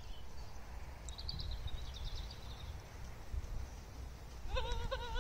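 Horse trotting on a soft arena surface, its hoofbeats muffled under a low steady outdoor rumble, with a few faint high bird chirps and a brief wavering call near the end.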